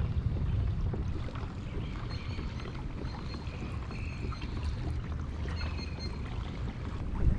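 Pedal-drive fishing kayak moving through calm water: a steady low rumble of water and hull noise, with faint high chirps now and then.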